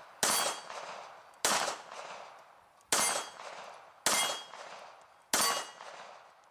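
Five pistol shots from a Baikal IJ-70 Makarov-pattern pistol, fired at a steady pace of about one every 1.2 seconds. Each shot has a sharp crack and then a ringing tail that fades over about a second.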